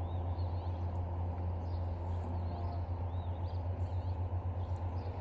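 Small birds chirping, short arching calls repeated every half second or so, over a steady low rumble.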